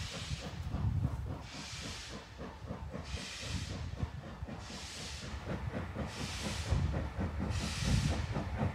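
LMS Jubilee-class three-cylinder 4-6-0 steam locomotive 45627 Sierra Leone moving a train slowly, its exhaust going in a regular hissing beat about every second and a half over a low rumble.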